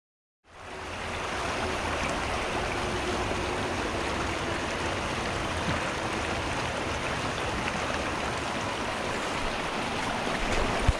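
Small mountain creek running over rocks and riffles: a steady rushing of water that cuts in about half a second in and holds even throughout.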